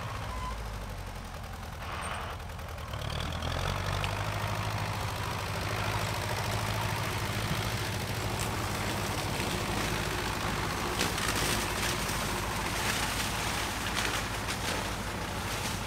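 Tractor engine running steadily with a low hum while mowing hogweed, growing louder about three seconds in.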